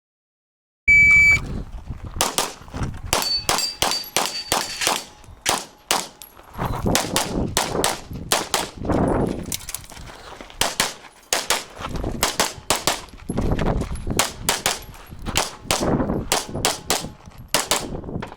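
Electronic shot timer beeps once, then a USPSA stage is shot with a handgun: rapid pistol shots in quick strings with short pauses between them for about seventeen seconds. Steel targets ring as they are hit a few seconds in.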